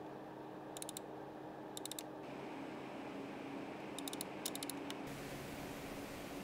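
Small-form-factor gaming PC under load, its case fans and cooler fans running: a steady whirring rush with a low hum. Short bursts of faint high clicking come about a second in, about two seconds in, and twice around four seconds in, and the rush grows fuller a little after five seconds.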